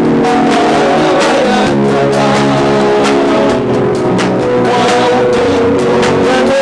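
Live worship band music: sustained chords and a melodic line over a steady drum beat, the accompaniment of a slow Swahili worship song.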